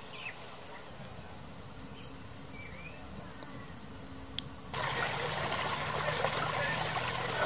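A small stream's water rushing and babbling over rocks, cutting in abruptly about two-thirds through and then loudest. Before it, quiet outdoor air with a couple of short bird chirps and a single sharp crack from the campfire.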